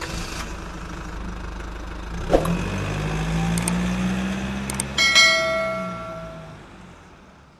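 Channel intro-card sound effects: a sharp hit, then a low engine-like rumble, two short mouse clicks and a ringing bell chime about five seconds in, all fading out near the end.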